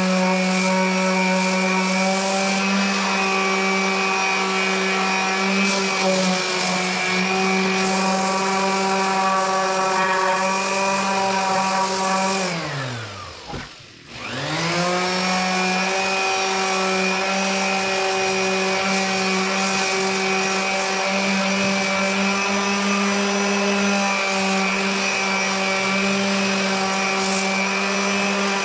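Electric sander motor running at a steady whine. About halfway through, it is switched off and winds down in pitch almost to a stop, then is switched straight back on and spins back up to full speed.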